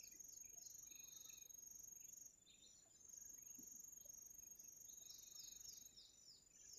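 Faint outdoor insect chorus: a steady, high, thin trill that breaks off briefly now and then, with quick runs of short high chirps near the start and again about five seconds in.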